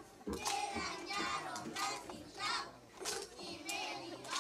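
A group of children singing together, their voices rising and falling in short phrases.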